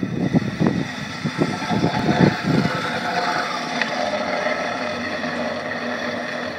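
Prowler sled's metal skids scraping across concrete as it is pushed: a steady grinding scrape with a faint metallic ring that cuts off when the sled stops. A run of low thuds sounds through the first two and a half seconds.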